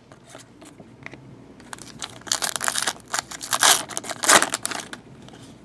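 Foil wrapper of a Prizm soccer card pack being torn open and crinkled by hand: faint handling at first, then a few seconds of dense crinkling from about two seconds in, dying away near the end.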